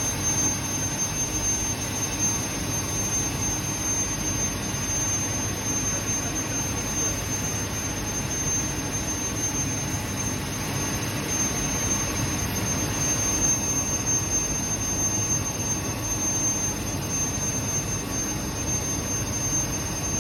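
Steady machinery din of a sealed quench furnace line during automatic unloading, with a constant high-pitched whine over it.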